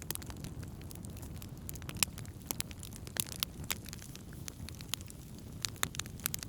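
Wood campfire burning: a steady low sound of the flames under frequent sharp crackles and pops of burning wood, the loudest pop about two seconds in and a few more close together near the end.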